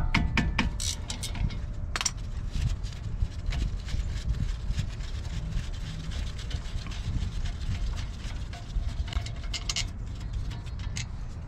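Scattered metal clicks and clinks of a wrench and bolts as the front brake caliper bolts are loosened and taken out, thickest in the first second, over a steady low rumble.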